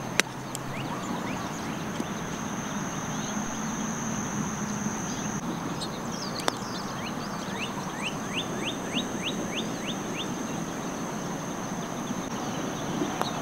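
Outdoor ambience: a steady high-pitched insect drone, with a bird giving a quick run of about eight rising chirps about two-thirds of the way in. A sharp click comes just after the start and another about halfway.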